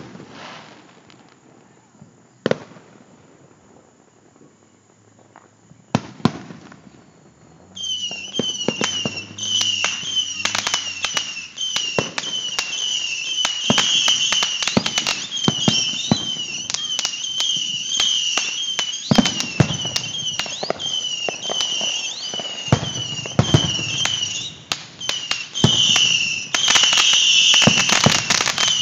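Fireworks show: single aerial shell bursts bang in the first several seconds. From about eight seconds in, a dense run of bangs and crackling pops follows, with a high wavering tone running alongside.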